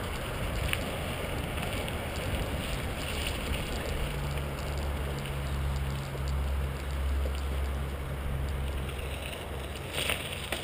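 Wind rushing over the microphone of a camera on a moving mountain bike, with the bike's tyres rolling over packed gravel and dirt; a low steady rumble swells through the middle, and a couple of short knocks come from bumps in the track.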